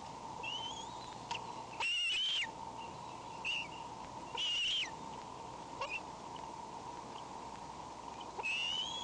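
Bald eagle at the nest giving thin, wheezy whistled calls: a string of short notes, the loudest about two and about four and a half seconds in, and a longer rising one near the end. A steady high electrical hum runs underneath.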